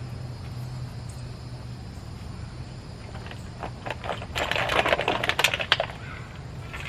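Rapid clicking and scraping of a small dog's claws, as in scratching or scrabbling on a hard surface, for about two seconds past the middle, over a steady low hum.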